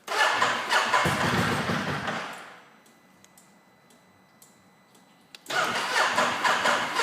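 2016 Ducati Multistrada S DVT's starter cranking its twin-cylinder engine, which turns over with a rhythmic pulse but never fires. The first attempt winds down after about two and a half seconds. A second cranking attempt starts about three seconds later and runs on. The bike won't start.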